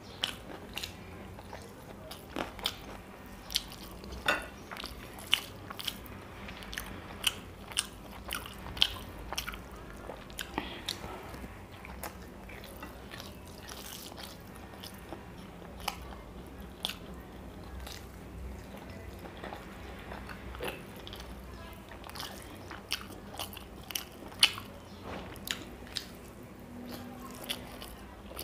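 Close-up eating sounds of a man eating rice and curry by hand: chewing with a string of sharp, wet mouth clicks and smacks at irregular intervals, about one or two a second.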